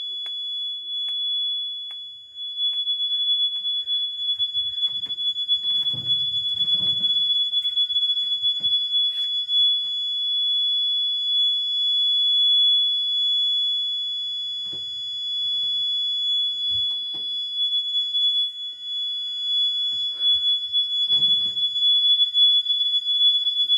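Gentex GX90 fire alarm horn sounding a steady, continuous high-pitched tone, with a few low bumps now and then.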